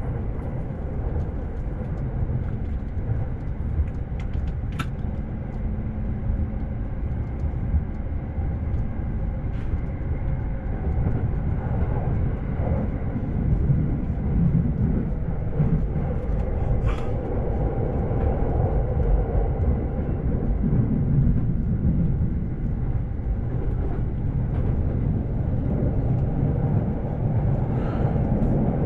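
Inside a moving JR Shonan-Shinjuku Line commuter train: a steady rumble of the wheels on the rails and the running gear, with a few faint clicks.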